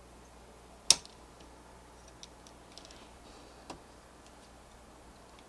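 A sharp plastic click about a second in, then a few faint ticks and a softer click near the end: an AMD Ryzen Threadripper's orange plastic carrier frame being handled and fitted into the socket's hinged rail frame.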